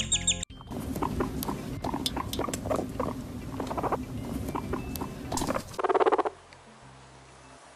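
Guinea pig grunting: a run of short, soft squeaky grunts for about five seconds, a sound most often taken as a sign of contentment. Just before six seconds comes a short buzzing guinea pig purr, which means either contentment or annoyance depending on the situation.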